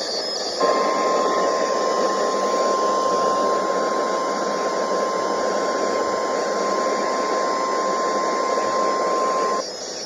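NOAA Weather Radio 1050 Hz warning alarm tone: one steady, high tone held for about nine seconds over radio static, starting about half a second in. It signals that a warning message follows, here a severe thunderstorm warning.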